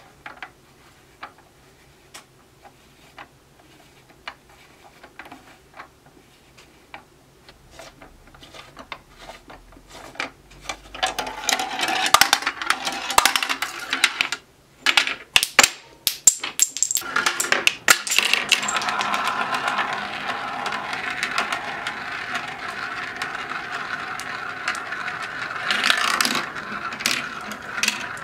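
Plastic marble run: a hand-cranked lift clicking about once a second as it carries a marble up, then from about eleven seconds in marbles rolling and clattering along plastic track pieces, becoming a long continuous rolling noise.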